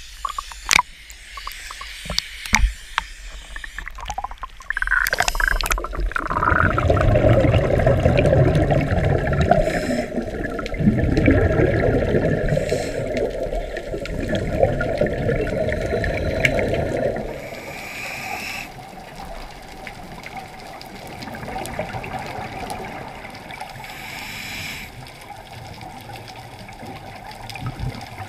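Water splashing at the surface with several sharp knocks on the camera housing, then, from about five seconds in, a muffled rushing of water and scuba divers' exhaust bubbles heard underwater through the camera housing. The rushing is loud until a little past halfway, then steadier and quieter, with short bubbly hisses.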